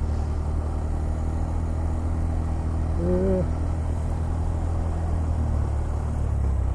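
Motorcycle engine running steadily at low road speed, a low even drone, on a Honda Monkey 125 whose clutch is slipping so badly that it can barely move under its own power. A brief higher tone about three seconds in.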